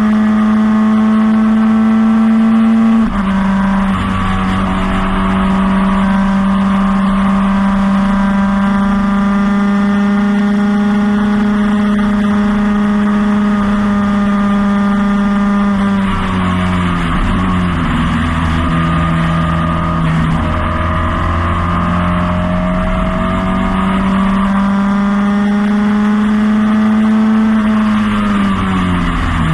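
Onboard sound of a 1977 Lola T440 Formula Ford's 1600 cc Ford Kent four-cylinder engine running near full revs, with a sudden drop in pitch at a gear change about 3 seconds in. The revs fall away and come back up around the middle, then fall again near the end as the car slows for a corner.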